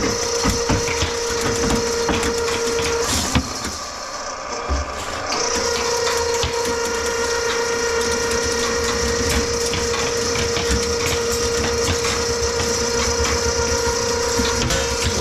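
Electric drain-cleaning machine running with a steady hum, its cable clicking and rattling as it turns in a grease-clogged kitchen sink drain line. The motor stops about three seconds in and starts again about two seconds later.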